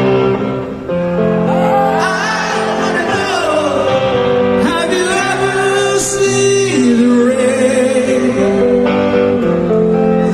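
Live rock band playing in a large hall, with guitars and singing: sustained chords under a melody line that bends and wavers in pitch.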